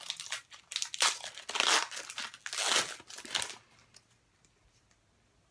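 Hockey card pack wrapper crinkling and tearing as it is opened, in a quick run of short crackles that stops about three and a half seconds in.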